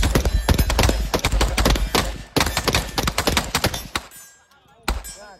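Rapid, overlapping gunshots, several a second and irregular, as from a number of guns firing at once. The firing thins out about four seconds in, then picks up again briefly near the end.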